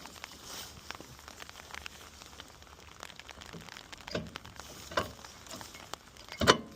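Rear brake pads being fitted into a car's brake caliper carrier: scattered light metallic clicks and clinks of handling, with a sharper knock near the end.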